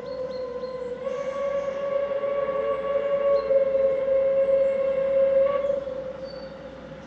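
Steam locomotive whistle sounding one long, steady blast that grows louder toward the middle and stops about six seconds in.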